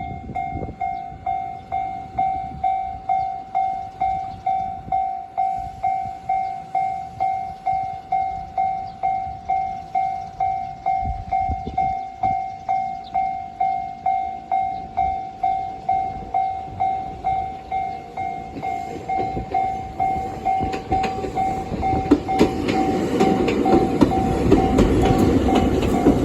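Japanese railway level-crossing warning bell ringing in a steady, even beat of just under two strokes a second. From about twenty seconds in, a train's rumble and wheels on the rails build up and cover the bell as the train comes through the crossing.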